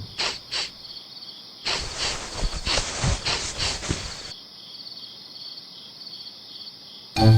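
Steady, evenly pulsed cricket chirping, with soft rustling and clicking through the first half.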